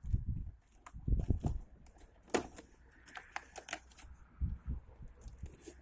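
Irregular clicks, taps and light knocks with a faint rustle, as the new cordless chainsaw and its packaging are handled and unpacked, with a few dull thumps in the first second and a half.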